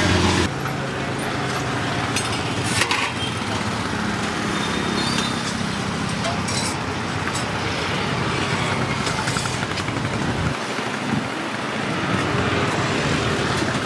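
Roadside street ambience: steady traffic noise, with a low engine hum that cuts out about ten and a half seconds in, and a few sharp clinks.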